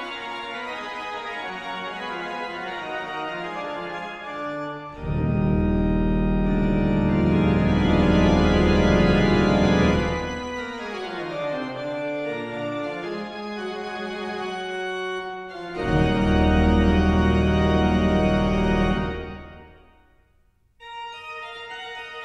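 Background music of sustained organ-like keyboard chords, swelling twice into louder passages with heavy bass. It fades out near the end and a new piece starts just after.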